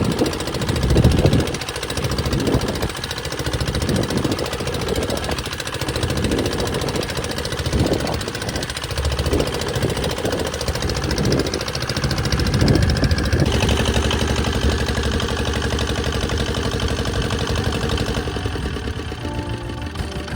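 An engine running. About two-thirds of the way in, it changes to a steady, even note.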